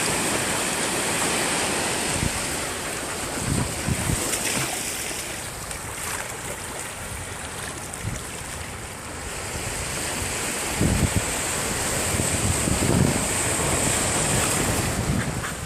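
Steady outdoor rushing noise, with wind buffeting the microphone in a few short low thumps.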